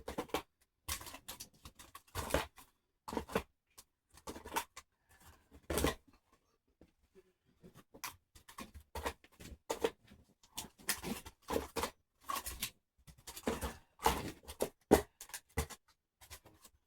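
Scentsy wax bars in plastic clamshell packs being handled and set into a storage container: irregular light clicks, taps and short scrapes of plastic, with a brief lull about seven seconds in.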